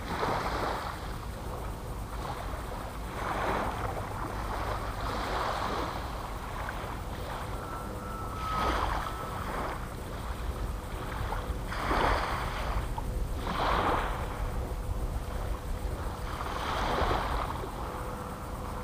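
Small waves washing onto a sandy shore every few seconds, over a steady rumble of wind on the microphone.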